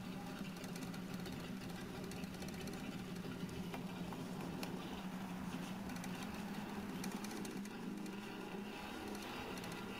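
Cloth with thick polishing paste rubbed back and forth by hand on a chrome exhaust pipe, a faint steady scratching over a constant low hum.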